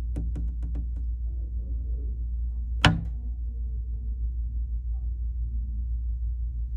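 Steady low hum. A quick run of about five faint clicks comes in the first second, and one sharp, louder click follows about three seconds in.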